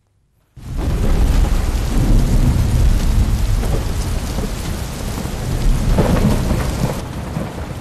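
Thunderstorm: heavy rain with deep rolling thunder. It starts abruptly about half a second in and eases off slightly near the end.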